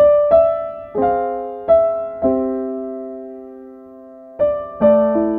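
Gentle piano music: single notes and chords struck every half second or so, each ringing and fading, with one chord left to die away for about two seconds before the playing resumes.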